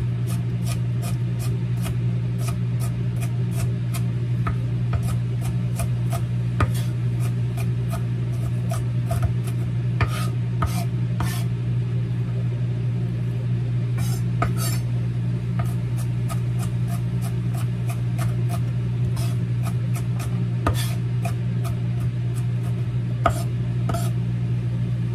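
Chef's knife chopping onion on a wooden board: quick irregular taps a few a second, with some scraping. Under it runs a steady low hum from a microwave oven cooking.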